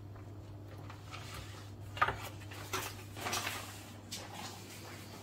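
A pizza tray being slid into a kitchen oven and the oven door handled: a sharp clack about two seconds in, then short scrapes and knocks, over a steady low hum.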